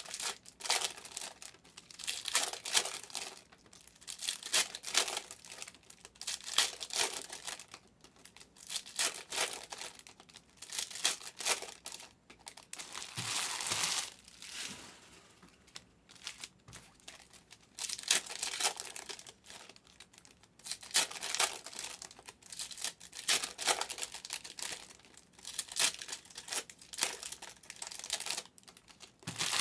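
Donruss Optic trading card pack wrappers being torn open and crinkled by hand, in repeated short bursts about every two seconds, with a brief pause about halfway through.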